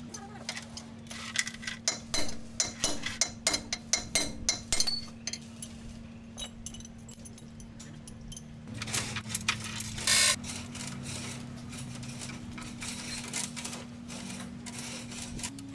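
Metal tools and parts clinking and tapping in a quick irregular run, thickest in the first five seconds, over a steady low mechanical hum. A short loud hiss comes about ten seconds in.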